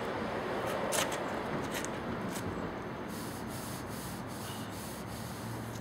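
A dry cloth rubbed by hand over a wet steel car fender, wiping the standing water off a freshly washed panel. A steady rubbing hiss, with a few light knocks in the first half and a run of brisker strokes in the second half.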